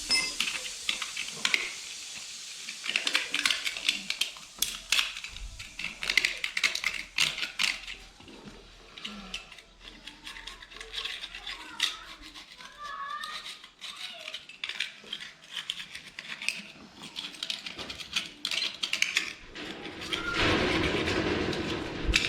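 Irregular clinks, taps and scraping of metal tools on small metal engine parts, with a louder rushing noise in the last two seconds.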